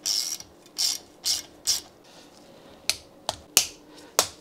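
Hand ratchet turning a cylinder head nut on a motorcycle engine. It starts with four quick rasping runs of clicks in the first two seconds. From about three seconds in it gives sharp single clicks a fraction of a second apart as the swings shorten.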